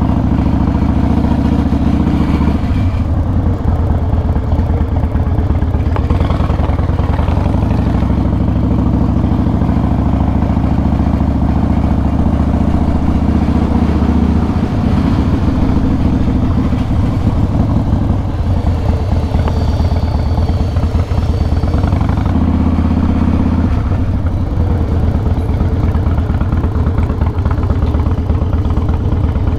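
Cruiser motorcycle engine running at low speed, steady and loud, with the throttle easing off and picking up again a few times as it rolls slowly along.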